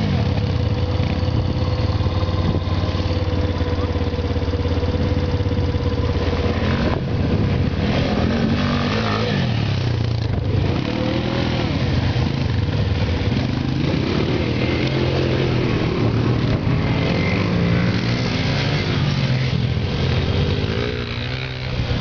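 Quad bike engine revving hard as it is ridden through loose dirt, its pitch rising and falling with the throttle.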